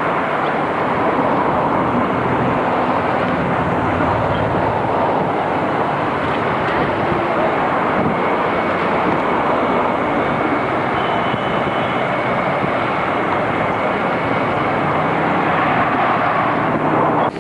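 Steady rushing noise of a car driving along, with a low engine hum beneath it, heard from inside the car.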